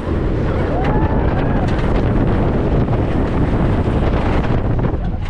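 Wind rushing and buffeting over the microphone at speed on the Iron Gwazi hybrid wooden-steel roller coaster. A few rising-and-falling voices cut through, and the rushing stops abruptly at the end.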